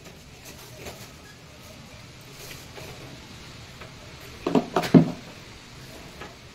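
Black plastic drip-irrigation pipe being handled on a cloth-covered table: soft handling rustle, then a quick cluster of three or four knocks about four and a half seconds in.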